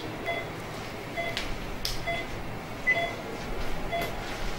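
Patient monitor beeping in time with the pulse: a short high beep a little under once a second. A couple of sharp clicks come between the beeps.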